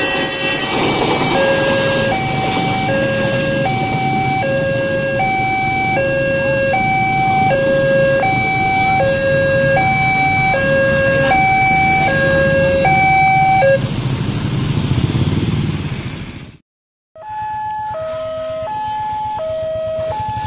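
Railway level-crossing alarm sounding an electronic two-tone warning, alternating low and high about once a second, over the rumble of a passenger train passing. It stops about 14 seconds in. After a brief silence, another crossing's two-tone alarm starts, higher and quicker.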